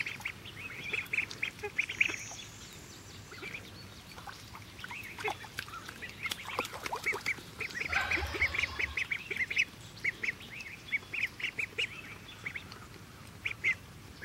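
A group of ducklings peeping: many short, high peeps in quick runs, thinning out for a few seconds before picking up again.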